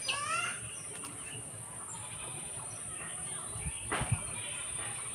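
Insects droning in one steady high-pitched tone, with a short rising call right at the start and a few soft thumps about four seconds in.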